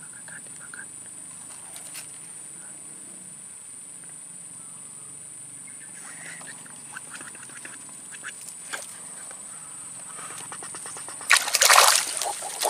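Water splashing as a hooked lembat catfish is yanked out of a small water-filled hole, a sudden loud burst near the end after a long quiet stretch. Faint short chirps come and go before it.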